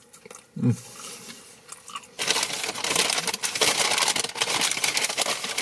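A short low hum with the mouth full, then from about two seconds in a loud, continuous crinkling and rustling of paper food packaging.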